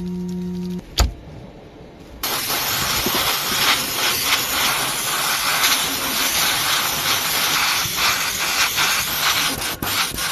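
A brief steady hum and a sharp click, then, about two seconds in, a loud steady hiss starts and runs on.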